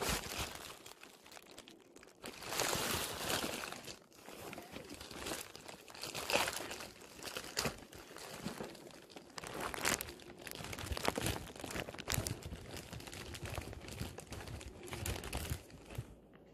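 Crinkling and rustling of something being handled, with many scattered clicks and knocks.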